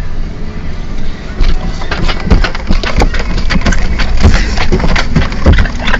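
Coach bus engine and road rumble running steadily. From about a second and a half in, an irregular clutter of sharp knocks and heavier thumps comes over it, the loudest thumps at roughly two to three, four and five seconds in.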